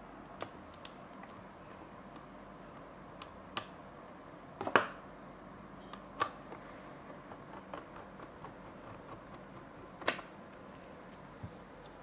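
Hand screwdriver turning screws into the metal housing of a smart rim lock mounted on a wooden panel: irregular small clicks and light knocks, a few of them sharper than the rest.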